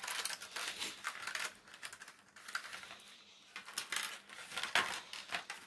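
Hard plastic clicking and clattering as a Gillette Styler trimmer's blue plastic comb attachments are worked loose from its clear plastic case. The clicks are sharp and irregular, with a loud one near the end.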